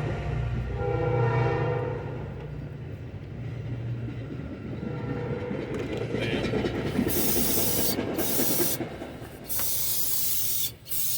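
Distant train horn sounding, then the rumble of the train passing. From about seven seconds in, an aerosol can sprays in several short hissing bursts, cleaning the anti-corrosion coating off a new brake rotor.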